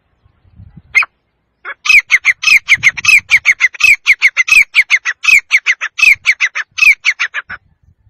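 Male grey francolin (teetar) calling. A single short note comes first, then a fast, even run of short, clear notes, about six a second, each bending downward in pitch. The run lasts about six seconds and stops abruptly.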